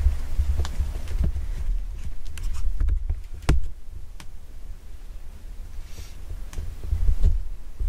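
Camera handling noise inside a fabric hunting ground blind: a steady low rumble with scattered light clicks and taps as the camera is moved. The sharpest tick comes about halfway through.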